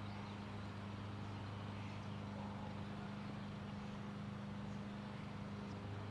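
A steady low hum with a faint hiss behind it.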